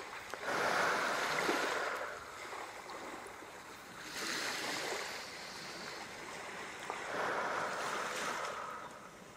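Ocean waves washing in, three swells of surf that build and fade about every three seconds.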